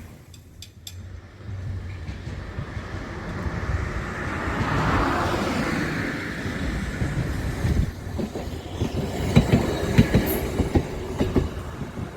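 A rail vehicle passing: its running noise swells to a peak about five seconds in, then its wheels click-clack over the rail joints in a run of sharp knocks from about eight to eleven seconds in.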